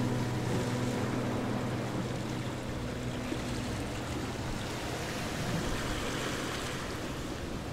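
Thick mutton and bottle gourd curry bubbling and simmering in a pan, a steady grainy bubbling hiss. Background music fades out near the start.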